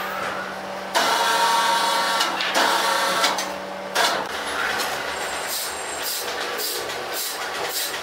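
Sawmill machinery running: a steady mechanical hum with whining tones that changes abruptly about a second in and again near four seconds. Later a regular high hissing pulse comes in, about three a second.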